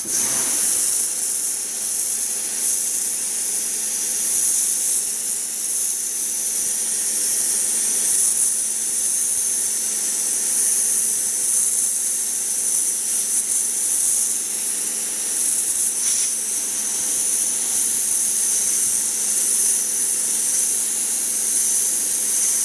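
Karcher K2 pressure washer with a wet sand-blasting nozzle, blasting water and sand at an alloy wheel. It starts abruptly, then gives a steady loud hiss over the pump's steady hum. Not much sand is coming through, and the sand suction hose is loose.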